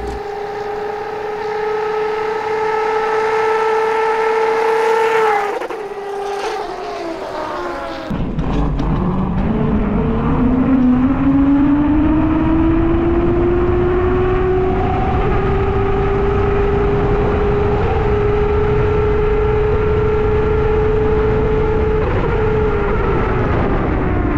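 Electric hub motor of an electric-converted 1999 King Cobra 50cc dirt bike whining at speed. The whine holds steady and then falls away about five seconds in as the bike goes by. From about eight seconds in it is heard onboard with wind rushing over the microphone, rising in pitch as the bike accelerates, holding steady, and falling near the end as it slows.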